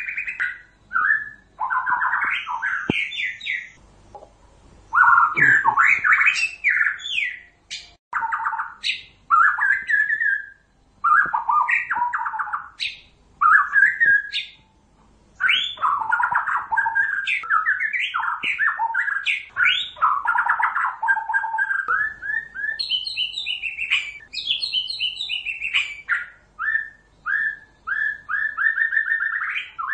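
Male white-rumped shama singing a long, varied song of rapid whistled phrases, trills and chattering notes, broken by brief pauses. Near the end the phrases rise higher in pitch.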